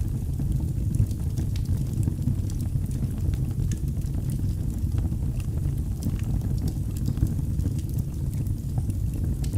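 Wood fire burning in a fireplace: a steady low rumble of the flames with irregular sharp crackles and pops from the burning wood.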